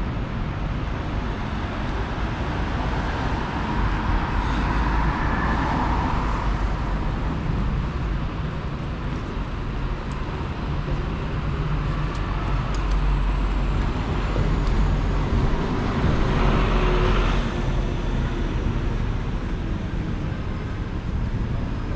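Steady city street traffic: a continuous rumble of cars and other motor vehicles, with a vehicle passing close about five seconds in and another around seventeen seconds.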